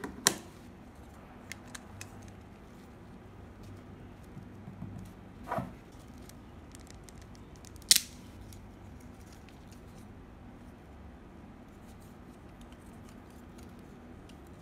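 Plastic and metal parts of a Beyblade spinning top clicking and knocking as it is handled by gloved hands, with a sharp click just after the start, a softer scrape about five and a half seconds in, and the loudest click about eight seconds in. In between only faint rubbing and small ticks.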